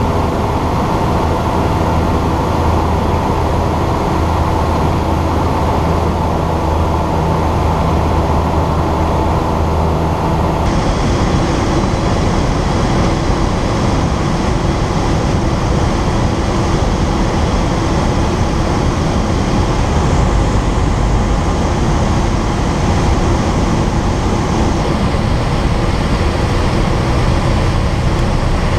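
Ikarus C42 microlight's engine running, with airflow rushing over an outside-mounted camera. About ten seconds in the sound changes abruptly: the steady low engine note gives way to a rougher, noisier rush as the aircraft comes in low to land.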